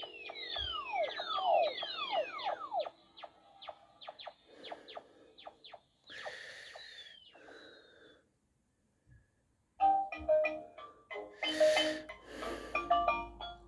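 Electronic sound effects from a Peppa Pig toy spaceship's sound chip. It opens with quick falling laser-like zaps, about three a second, then clicks and short hisses. After a short pause, a little electronic jingle starts about ten seconds in.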